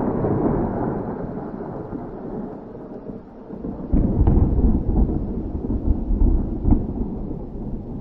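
Thunder rumbling loudly and slowly fading, then a second, deeper roll about four seconds in with a couple of sharp cracks in it.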